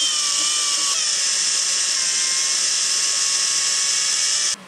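Makita cordless drill running at high speed, a 1/16-inch bit boring a small hole into a block of scrap wood. It makes a steady high whine whose pitch sags a little about a second in as the bit loads, then it cuts off sharply just before the end.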